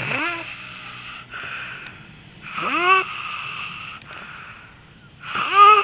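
A woman snoring loudly in her sleep: three pitched, rising snores about two and a half seconds apart, each followed by a breathy hiss, with a honking, goose-like sound.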